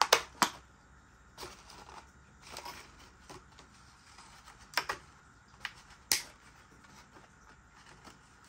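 About half a dozen sharp clicks with light rustling between them: packaging being cut open and handled.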